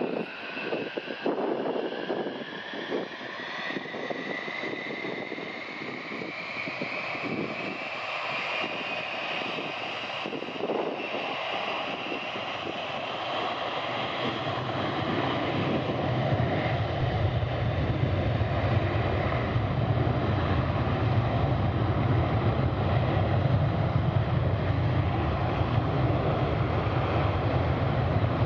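Boeing E-3A AWACS's four TF33 turbofan jet engines spooling up to takeoff power, their whine rising in pitch over the first several seconds. About halfway through, a deep jet rumble builds and the sound grows steadily louder.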